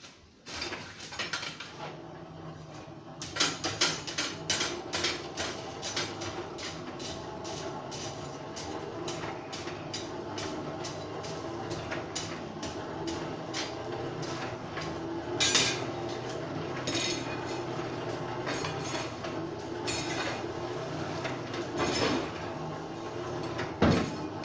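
Hammer striking steel bar stock on an anvil: a run of rapid metallic blows, about two to three a second, over a steady hum, with a few louder strikes in the second half.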